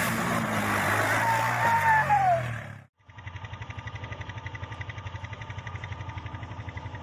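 Quad bike (ATV) engine running under throttle as it splashes through shallow water, with a brief falling squeal near two seconds. After a sudden cut about three seconds in, a steady, fast-pulsing engine hum follows.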